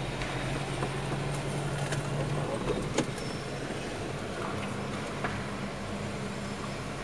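Car running, heard from inside the cabin: a steady engine hum over road and tyre noise. The low engine note drops away about two and a half seconds in, and a slightly higher hum comes in near the middle. There is one sharp click about three seconds in.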